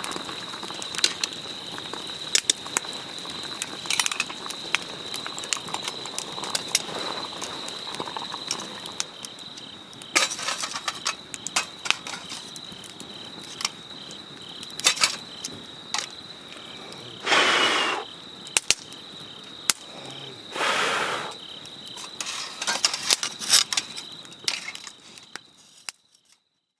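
Wood campfire crackling and popping, with a steady thin high tone underneath. Two short hissing rushes come about seventeen and twenty seconds in, and the sound fades out near the end.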